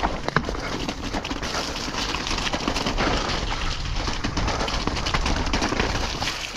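Downhill mountain bike ridden fast down a muddy trail: the tyres run through the mud while the bike rattles and clatters over the bumps, with wind rumbling on the microphone.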